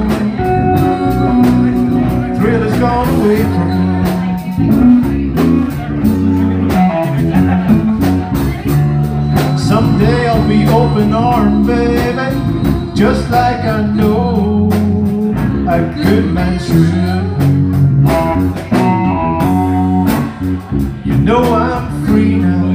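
Live blues band playing a slow blues: guitar over electric bass and drums.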